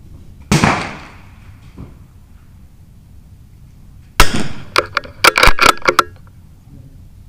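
.22 LR rifle shots on a benchrest firing line: one sharp crack about half a second in and a louder one about four seconds in, then a quick run of six or seven more cracks over the next two seconds, too fast to come from a single rifle.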